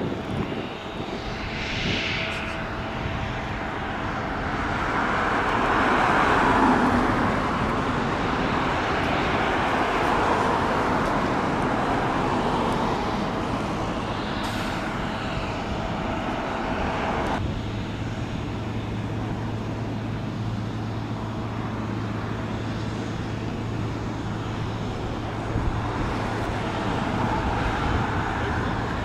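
Cars passing on the road, their tyre rush swelling and fading. About two-thirds of the way through, a low steady engine hum joins in.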